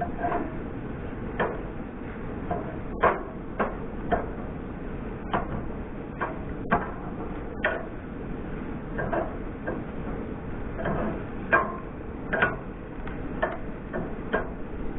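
Diced meat sizzling in a stainless steel frying pan on a propane camp stove. Irregular clicks and clinks come from metal-tined tongs knocking against the pan as the pieces are turned.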